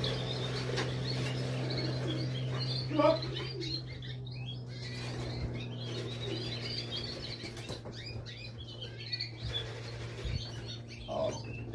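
Small birds chirping repeatedly, high-pitched and short, over a steady low hum.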